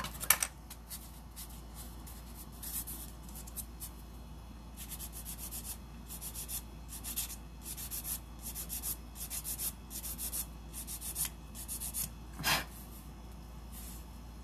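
An abrasive nail file rubbing across acrylic nails in short scratchy strokes. The strokes are sparse at first, then come in a quick run of about two to three a second, with one louder stroke near the end. A sharp click comes right at the start.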